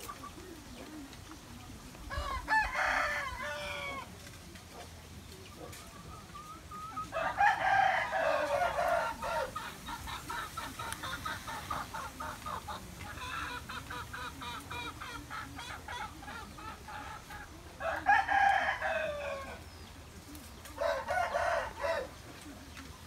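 Rooster crowing four times, each crow a loud call lasting one to two seconds. A run of quick, repeated clucking notes comes between the second and third crows.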